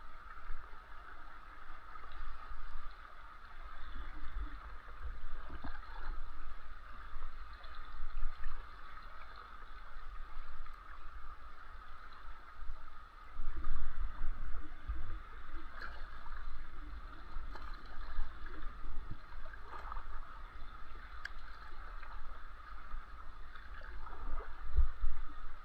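Water rushing and gurgling steadily around a fishing kayak, over a low uneven rumble of wind buffeting the microphone, with a few faint knocks.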